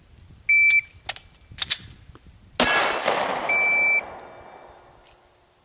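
Shot-timer start beep, then mechanical clicks as a stovepipe malfunction in a 9mm Glock 17–based PDW is cleared with a tap and rack. Then a single 9mm shot, loud, followed by the ring of a steel target. A second timer beep at the same pitch, about a second after the shot, marks the 3-second par time.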